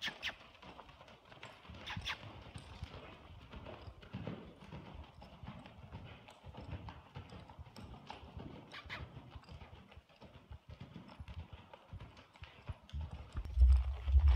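Hoofbeats of a horse moving through deep arena sand: soft, irregular thuds. Near the end, wind buffets the microphone with a low rumble.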